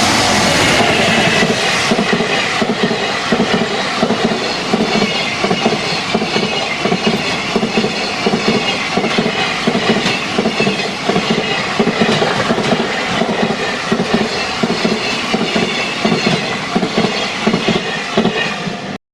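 A JR Freight train's wagons rolling past close by: a steady clatter of wheels over rail joints, with a faint wavering high squeal from the wheels. The sound cuts off suddenly near the end.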